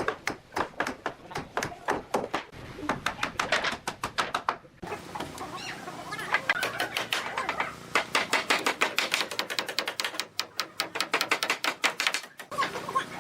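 Rapid, irregular sharp taps of hand tools striking wood, several a second. The sound breaks off abruptly about five seconds in and again near the end.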